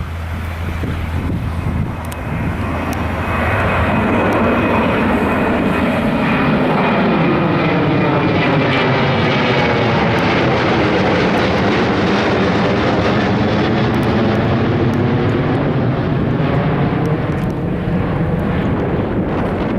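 Jet airliner passing low and close, its engine noise building over a few seconds, holding loud with a sweeping, phasing whoosh as it goes by, then easing off.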